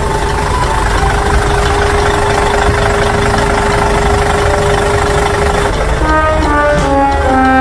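A vehicle engine running steadily, with a constant hum over a low rumble. About six seconds in, a short tune of stepped notes starts over it.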